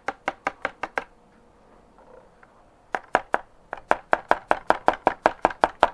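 Rapid, regular tapping, about five taps a second, with a pause of about two seconds in the middle: a container being tapped to shake the last of the copper carbonate powder out into the acid.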